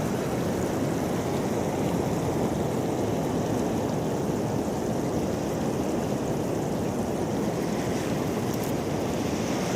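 Sea surf washing steadily on the shore: an even, unbroken rush.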